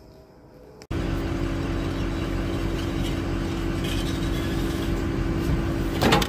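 A small gasoline engine starts being heard suddenly about a second in and then runs steadily. Near the end there is a loud metallic clatter.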